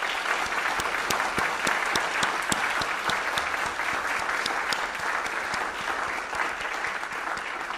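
Audience applause: a dense, steady patter of many hands clapping, with a few nearby claps standing out sharply.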